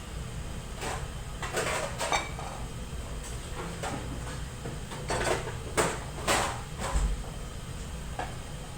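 Kitchen utensils and dishes being handled: a scattering of short knocks, clinks and scrapes, several close together in the middle, over a steady low hum.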